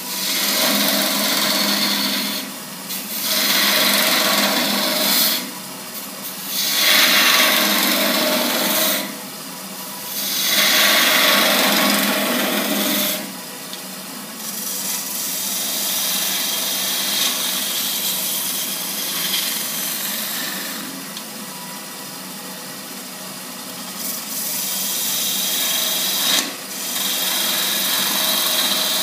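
Wood lathe spinning a wooden goblet while a hand-held turning tool cuts shavings from the outside of the cup, thinning its wall. The cutting hiss comes in passes a few seconds long with brief drops between, then runs on more steadily and a little quieter.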